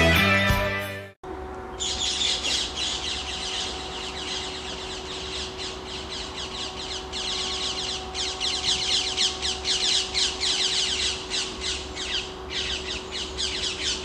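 Parakeets squawking in an agitated, continuous run of harsh, rapid calls, several a second, with brief breaks. These are alarm calls set off by a bird of prey flying past. Intro music cuts off about a second in.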